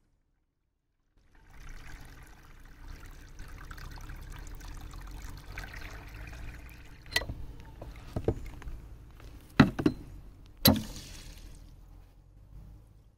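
Sugar water pouring from a hose nozzle into a round plastic hive feeder, a steady pour that starts about a second in. A few sharp knocks come in the second half, the loudest about ten seconds in.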